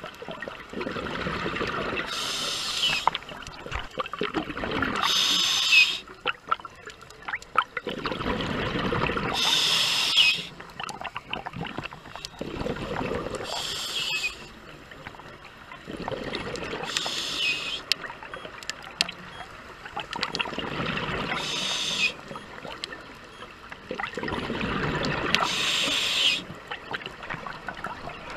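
A scuba diver breathing through a regulator underwater: exhaled bubbles and the regulator's hiss, repeating about every four seconds.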